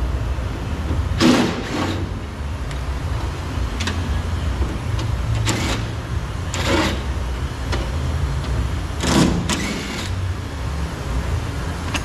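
Cordless drill/driver running in several short bursts, each under a second, as it backs out the door-handle screws, over a steady low hum.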